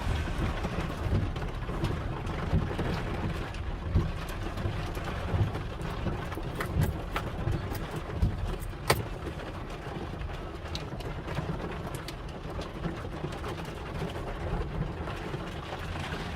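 Hailstones and heavy rain pelting a vehicle: scattered sharp ticks of impacts over a steady hiss of rain and a low rumble of the vehicle and wind, with one especially sharp hit about nine seconds in.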